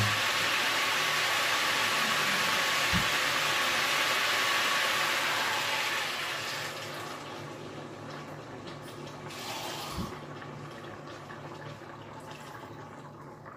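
Pork pieces sizzling in a pot, then water poured in from a mug about six seconds in; the sizzle dies away over the next two seconds to a much quieter hiss.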